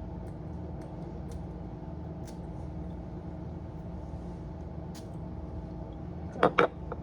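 Two quick sprays from a cologne bottle's atomizer, short hissing bursts close together about six and a half seconds in, over a steady low hum and a few faint handling clicks.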